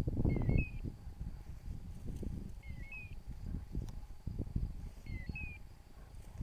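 Footsteps swishing and thumping through tall meadow grass. A faint short chirp repeats evenly, about every two and a half seconds.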